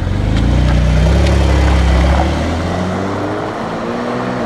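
Performance car engine revving hard as the car accelerates away, its pitch rising; about two seconds in the sound drops back, then climbs again more quietly.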